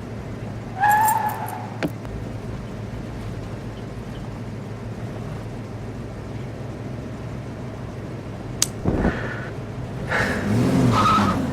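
Steady low rumble of a car running, with a short squeal about a second in, a few sharp clicks, and pitched sounds that bend up and down near the end.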